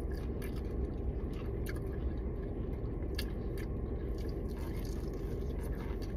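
A person chewing and biting into fried chicken, with a few short faint clicks, over a steady low hum.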